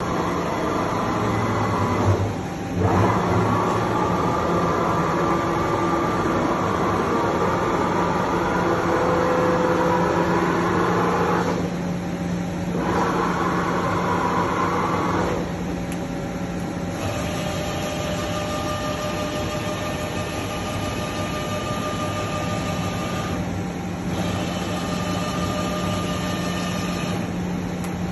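KOLB KBN I 65 CNC portal machine running: a steady low hum with higher whining tones that change in steps several times.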